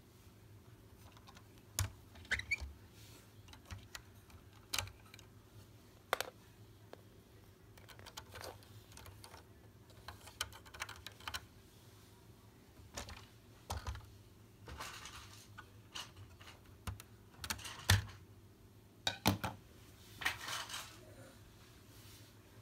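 Handling noise of a plastic Lego model and the camera: irregular light clicks, taps and brief rustles of plastic, scattered with no rhythm, with a cluster of louder clicks in the second half.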